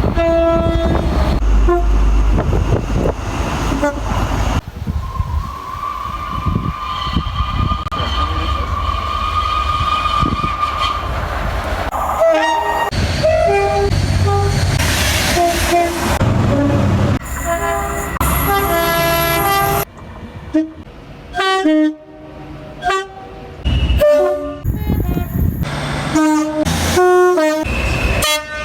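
A run of British train horns sounding, mostly short two-tone blasts that step between a high and a low note, in several clips cut one after another over the noise of trains running. One long, steady high note sounds from about five to eleven seconds in.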